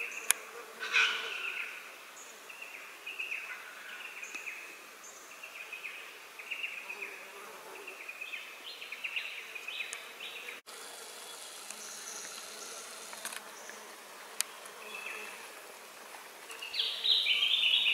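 Insects buzzing in short, repeated high-pitched bursts, with a louder burst near the end.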